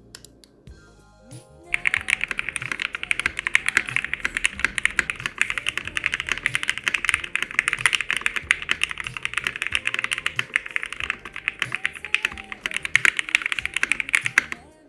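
Mechanical keyboard in a 3D-printed PLA+ O-ring-mounted case being typed on fast: a dense run of key clacks that starts about two seconds in and stops just before the end. Faint background music plays underneath.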